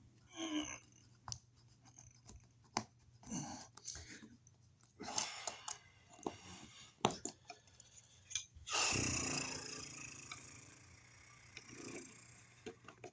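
Wire mold raceway being worked down into an outlet box: scattered clicks, knocks and short scrapes, with a longer scrape about nine seconds in that fades away.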